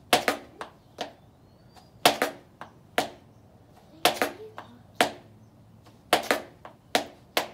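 Heeled dance shoes scraping and striking a concrete floor while the tornillo step is practised, a scrape of the right foot followed by a heel strike. The pattern comes as a quick cluster of sharp taps and scuffs about every two seconds.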